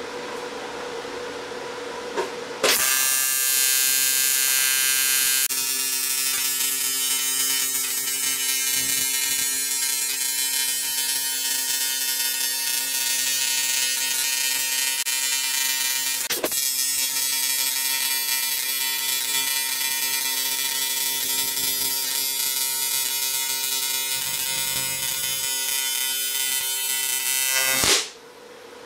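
TIG welding arc on quarter-inch aluminium: a steady, harsh electric buzz that strikes up about three seconds in and cuts off shortly before the end, with one sharp crack about halfway through. A quieter steady hum from the welder comes before the arc starts.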